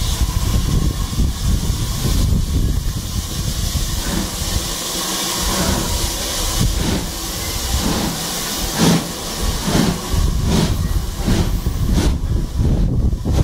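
Steam tank locomotive pulling hard as it moves its train off: steady steam hissing, with exhaust chuffs that become distinct about halfway through and settle to about two a second.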